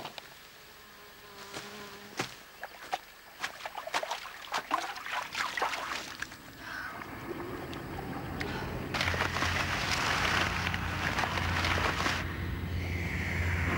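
Rustling and light crackling steps in long grass, then a buzzing drone that swells from about seven seconds in. The drone holds with a low hum and hiss, and a sweeping tone near the end.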